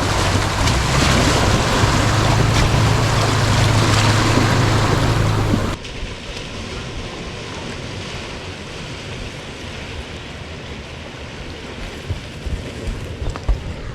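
A 4x4's engine running as it pushes through a deep, water-filled mud hole, with water rushing and surging around the vehicle. About six seconds in the loud rushing cuts off suddenly, leaving a quieter, steady rumble with a few light knocks near the end.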